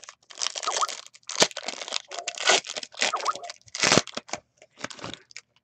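Plastic wrapping being torn open and crumpled by hand: irregular crinkling and tearing crackles that come in several bursts.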